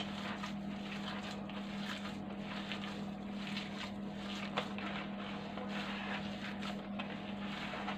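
Faint, soft squishing of hands kneading minced meat with spices in a plastic bowl, over a steady low hum, with one small click about halfway through.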